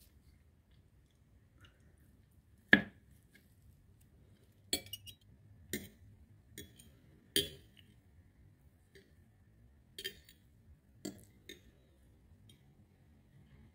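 Cutlery clinking and tapping against a plate while cutting poached eggs: about eight short, sharp strikes spread over ten seconds, the loudest about three seconds in.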